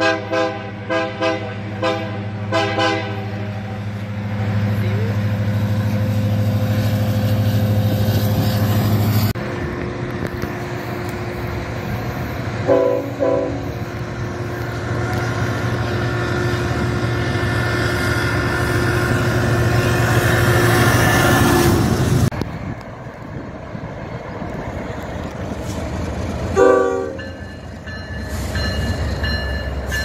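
Diesel freight locomotive chord horns: a rapid run of about eight short blasts at the start, then a locomotive engine running as it approaches. Two short horn blasts come near 13 s, a locomotive and its cars pass close with a rising rumble, and after an abrupt change another horn blast sounds near 27 s.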